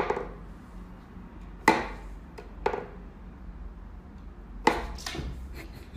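Wooden whack-a-mole cat toy clacking: about five sharp wooden knocks at uneven intervals as its pegs pop the mouse up and the cat bats at it.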